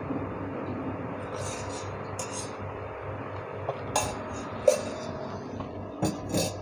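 Steady hiss of a lit gas stove burner under a wok, with about six sharp clinks of kitchenware, the loudest a little past the middle.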